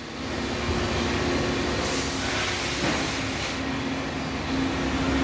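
Swiss-type automatic lathes running in a machine shop, a steady mechanical hum. About two seconds in, a loud hiss starts and runs for under two seconds.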